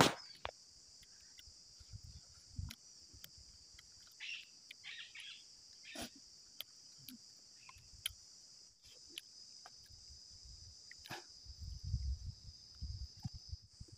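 Steady high-pitched insect chorus trilling without a break. Scattered soft clicks, with a cluster of low thumps near the end, come from eating off a steel plate close to the microphone.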